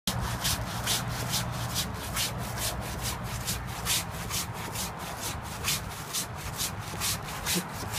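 Hand saw cutting through the trunk of a fallen orchid tree, in quick, even back-and-forth strokes that rasp through the wood.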